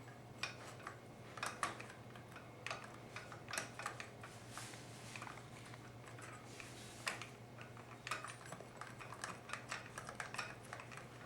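Irregular light clicks and taps of metal transmission parts as an assembly is rotated back and forth inside a 4L60E input drum, working to spline it with the clutch frictions so it seats on the thrust bearing.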